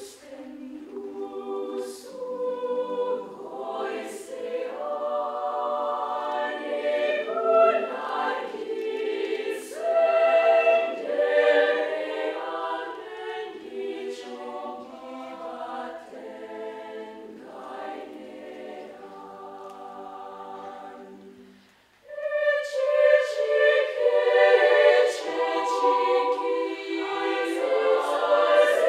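Children's choir singing unaccompanied in several parts. The singing breaks off briefly about three-quarters of the way through, then comes back in louder.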